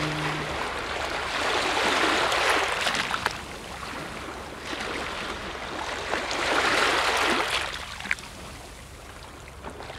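Sea-surf sound made on a modular synthesizer: a hiss of noise that swells and ebbs like waves, about three times, and dies down near the end. A low held note fades out in the first half second.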